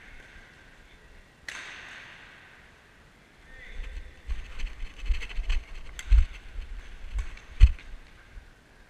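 Badminton rally: sharp racket hits on the shuttlecock ringing out in a reverberant sports hall, one loud hit about a second and a half in with a long echo. This is followed by a quicker run of hits and knocks over low thumps of footsteps.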